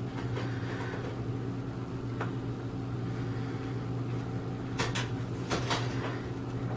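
A steady low mechanical hum, like an appliance or fan, with a few sharp clicks: one about two seconds in and a quick cluster of four about five seconds in.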